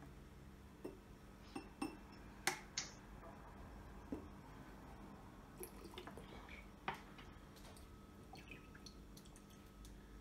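Vinegar being poured from a bottle into a glass, with faint drips and splashes and a few sharp clicks and knocks as the bottle and glass are handled, the loudest about two and a half seconds in and again near seven seconds.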